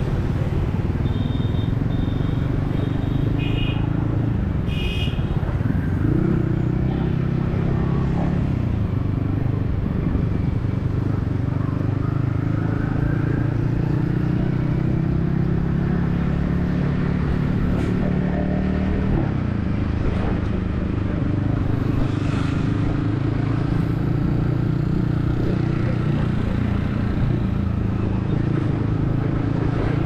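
Yamaha XSR155's 155 cc single-cylinder engine running under way in city traffic, heard from the rider's helmet. Its pitch rises and falls with the throttle, climbing noticeably twice. A few short high beeps come in the first few seconds.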